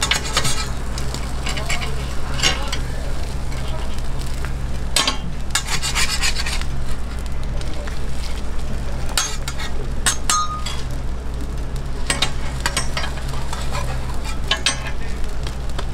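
Food sizzling on a flat-top griddle while a metal spatula scrapes and clinks against it in short bursts every few seconds, over a steady low hum.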